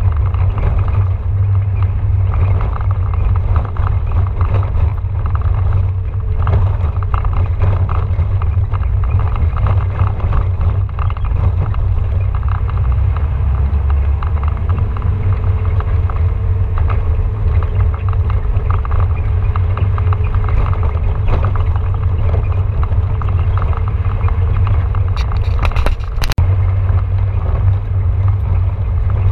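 Off-road vehicle driving up a gravel track, heard from inside the cab: a steady low rumble of engine and tyres on loose stones and dirt. A few brief high clicks or rattles come near the end.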